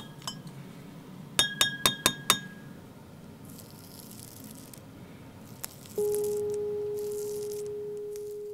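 A plastic disposable razor rapped against the rim of a glass of water, about five quick ringing clinks. Then faint scraping strokes of the razor over stubble. About six seconds in, a steady pure ringing tone starts and slowly fades; it is the loudest sound.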